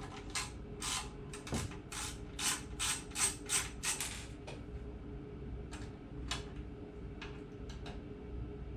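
Screwdriver with a star (Torx) bit clicking as it ratchets screws out of the power supply's metal case: quick, regular clicks for about four seconds, then a few scattered clicks.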